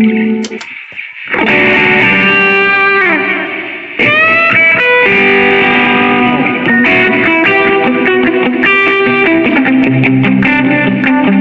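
Electric guitar played through the Line 6 POD HD300's amp and effects models: ringing chords, a short drop-out just after the start, then a chord whose pitch slides down. From about four seconds in comes a run of quicker picked chords and notes.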